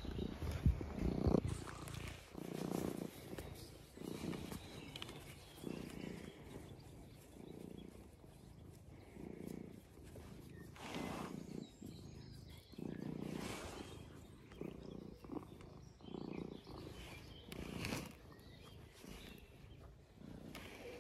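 A low animal rumble coming in regular pulses about every second to second and a half, like breath-by-breath growling or purring, with a couple of short scuffling noises about halfway through and near the end.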